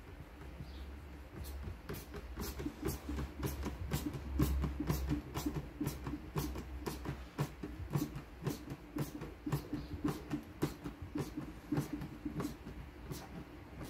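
A screw being driven by hand with a screwdriver into a Land Rover door-top frame. It makes a run of sharp clicks, about two or three a second, starting about a second and a half in.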